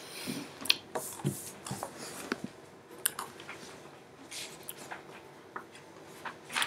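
Scattered small clicks, taps and brief rustles of someone handling things at a computer, over a faint, quiet room background.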